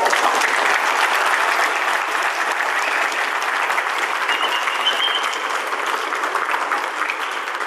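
A crowd applauding, dense and sustained, thinning out near the end.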